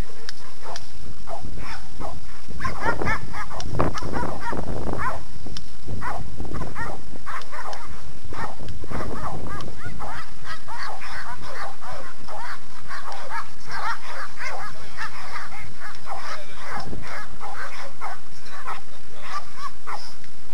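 Several dogs barking over and over, the barks overlapping and coming thick and fast, loudest in the first few seconds.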